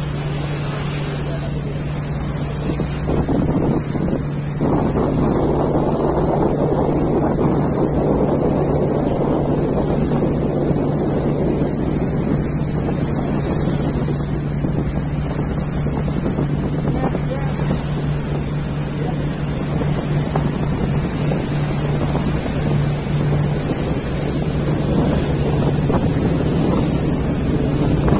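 A boat's engine running with a steady low drone, mixed with wind buffeting the microphone and the wash of water. The rushing noise gets louder about four seconds in.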